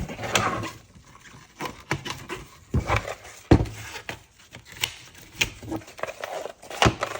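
Plastic parts of a Dyson V10 direct drive cleaner head being handled and fitted together by hand: irregular sharp clicks and knocks with some scraping between them.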